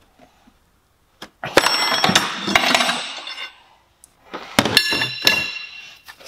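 Metal tools clanking and ringing against engine parts in two spells of clattering, the first about a second and a half in and the second just after four seconds, as the auxiliary belt tensioner is levered loose.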